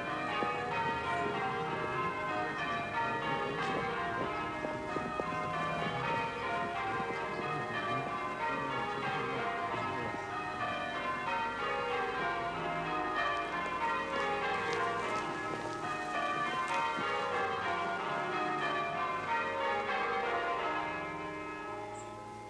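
A peal of church bells: several bells ringing one after another in falling runs, repeated over and over, fading out near the end.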